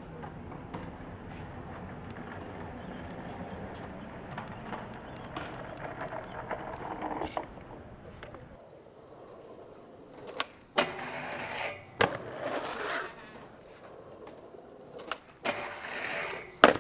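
A skateboard rolling over rough asphalt, then skateboarding: sharp clacks of the board popping and landing, wheels rolling between them, and the trucks grinding a metal handrail near the end, closed by the loudest clack.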